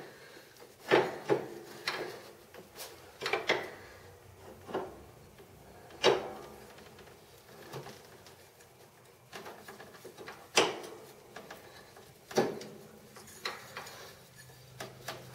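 Irregular metal knocks and clicks, about ten of them, as the rebuilt variable speed drive pulley and its belt are worked by hand onto the shaft of a riding mower. The loudest knocks come about a second in and about six seconds in.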